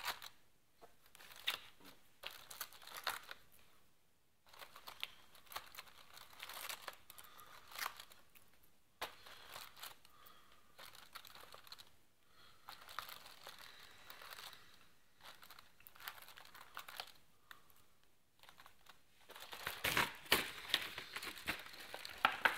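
Cardboard advent calendar door being torn and pried open to get at the chocolate: irregular crinkling and tearing in stretches with short pauses, loudest near the end.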